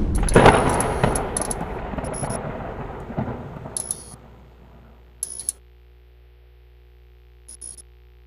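Intro sound effect: a heavy impact hit that fades out in a long rumble over several seconds, with short bright metallic clinks scattered through it, leaving only a faint low hum.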